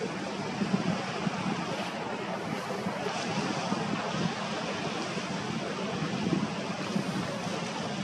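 Waves breaking on a rocky shore: a steady rush of surf, with some wind buffeting the microphone.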